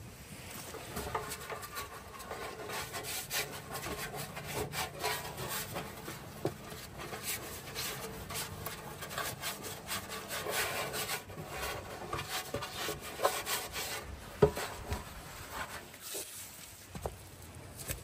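Hand smearing oil around a metal baking tin to grease it, a quick, irregular, wet rubbing, with a few knocks of the tin on the wooden bench, the sharpest one late on.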